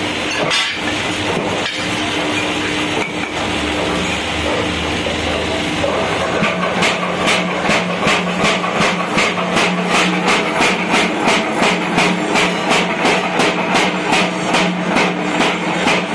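Mechanical power hammer running with a steady motor hum; from about six seconds in it strikes in an even, rapid rhythm of about three blows a second, forging a sledgehammer head.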